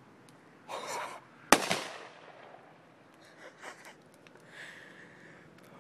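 A CO2 cartridge bursting in a fire: one sharp, loud bang about a second and a half in that dies away quickly, with a shorter burst of noise just before it.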